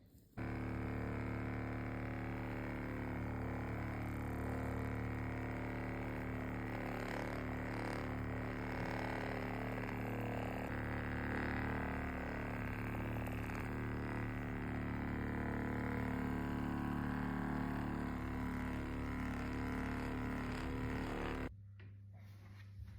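Steady machine hum with a set of even tones, starting abruptly about half a second in and cutting off abruptly about a second and a half before the end.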